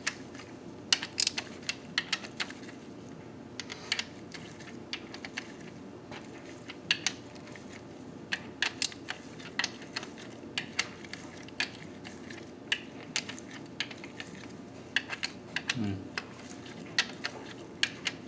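Wrench and socket clicking and clinking on the cam tower cap bolts of a Nissan KA24DE cylinder head as the caps are drawn down evenly against valve spring tension. The metal clicks come irregularly, several a second at times, over a steady low hum.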